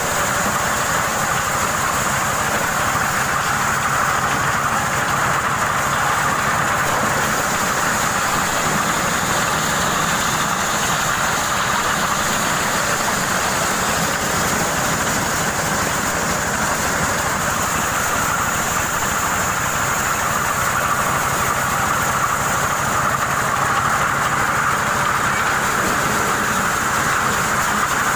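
Motorised corn sheller running steadily under load, an even engine hum under the dense noise of the machine shelling unhusked ears of corn.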